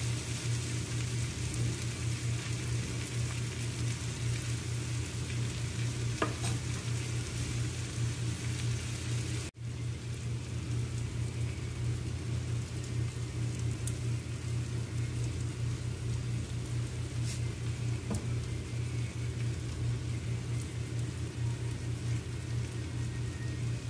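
Bitter gourd and egg sizzling in a frying pan, at first stirred with a metal spoon, over a steady low hum. The sound drops out for an instant about ten seconds in.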